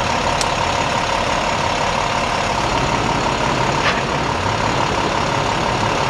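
Large vehicle engine idling steadily, a low rumble with a constant whine over it, plus two faint brief ticks.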